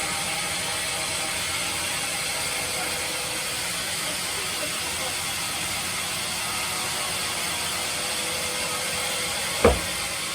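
Sawmill bandsaw machine running steadily, an even mechanical noise with faint steady tones, then a single sharp knock near the end.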